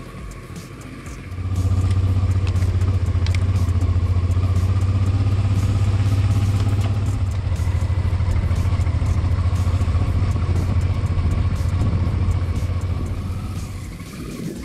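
Honda Transalp 650's V-twin engine running steadily as the motorcycle rides along a dirt track. It is fainter for the first second, then close and loud, and drops away near the end.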